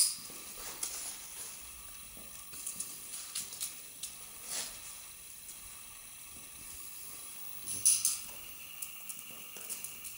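Scattered soft footsteps, scuffs and clicks of a person and a beagle walking on a tiled floor, over a faint steady hiss, with a brief louder cluster of scrapes about eight seconds in.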